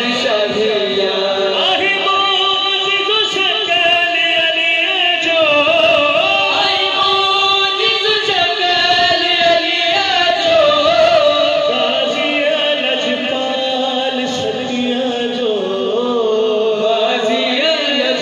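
Group of men singing an Urdu devotional manqabat together into microphones, their voices amplified over a sound system.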